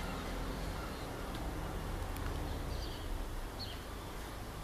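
Outdoor ambience: a steady low rumble with a few short, high bird chirps about three seconds in and near the end.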